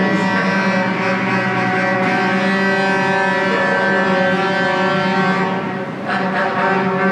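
A loud, steady drone of several held tones stacked together. It dips briefly about six seconds in and then resumes.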